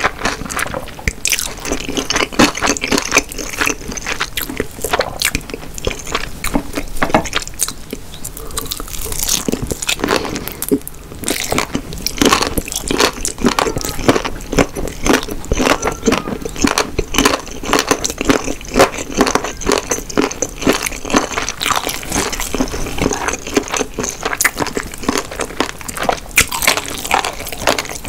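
A person chewing food close to the microphone: a dense stream of small sharp clicks and smacks from the mouth, with a short lull about ten seconds in.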